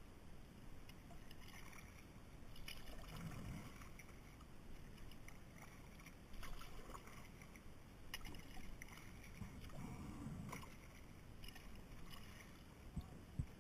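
Faint sounds of a kayak being paddled: uneven water swishing and splashing from the paddle strokes, with scattered light clicks. Near the end come two sharp knocks close together, the loudest sounds.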